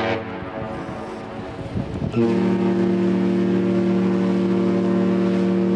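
Cruise ship Royal Viking Sun's whistle answering with one long, steady blast that starts about two seconds in. Just before it, Black Watch's own ship's whistle cuts off at the very start.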